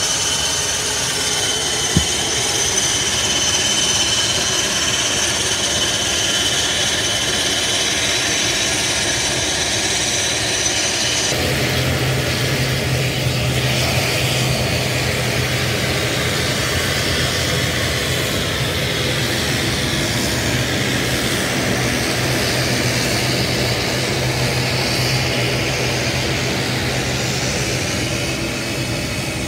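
Turboprop airliner engines running on an airport apron: a loud steady rush with a high turbine whine, changing abruptly about eleven seconds in to a steady rush with a low droning hum.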